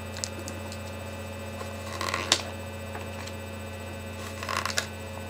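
Pages and cover of a large hardcover picture book being opened and turned: a rustle with a sharp click about two seconds in and a short run of rustles near the end, over a steady electrical hum.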